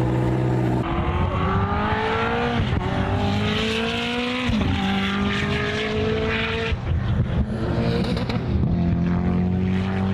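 Koenigsegg Jesko's twin-turbo V8 accelerating hard through the gears. A steady note for about a second, then the pitch climbs and drops sharply at quick upshifts, several times over.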